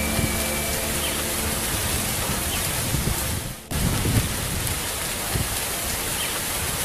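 Heavy rain with low rumbles of thunder: a steady hiss that breaks off for a moment about three and a half seconds in and then comes back.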